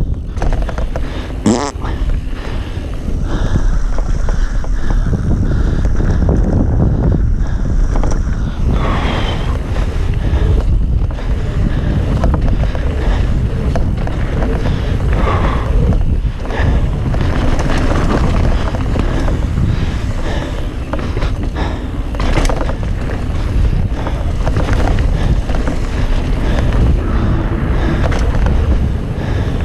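Mountain bike descending a dirt singletrack at speed: heavy wind rumble on the microphone over the tyres running on dirt, with frequent knocks and rattles from the bike over bumps and a few brief squeals.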